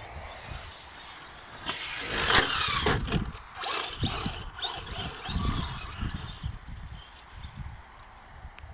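Traxxas Slash 4x4 brushless RC truck's electric motor and drivetrain whining as it speeds over grass. The whine rises and bends in pitch, loudest about two seconds in as the truck passes close, then comes in shorter surges as it throttles on and off moving away.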